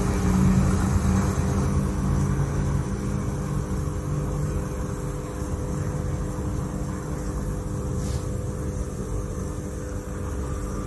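Steady low rumble and electrical hum from an electric muffle furnace running near 500 °C, with a few constant tones above the rumble.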